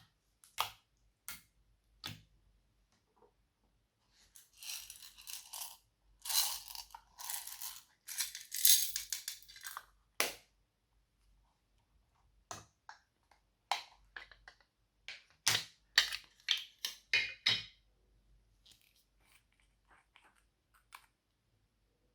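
Slime being worked by hand: sharp sticky pops and clicks, with stretches of dense crackling as it is pressed and mixed.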